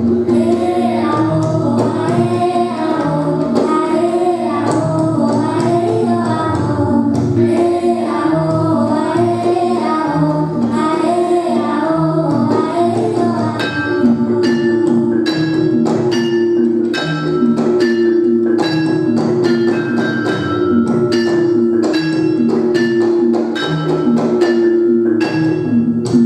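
Javanese gamelan in pelog tuning: struck bronze metallophones, bonang kettle gongs and drum play a steady pattern while a girl sings a melody over it. About halfway through the voice drops out and the metallophones go on alone in a busier run of quick strikes.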